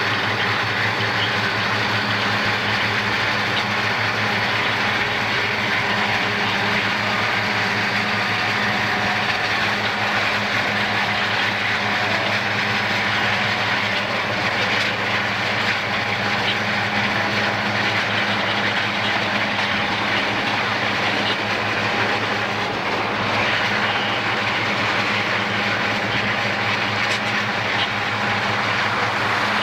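Steady road and wind noise of a car cruising at highway speed beside a moving freight train, with a low steady drone underneath.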